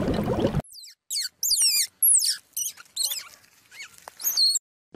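Squirrel giving a series of about six short, high-pitched squeaking calls, each sweeping quickly down in pitch, with silent gaps between them. Before them, a buzzing noise cuts off suddenly about half a second in.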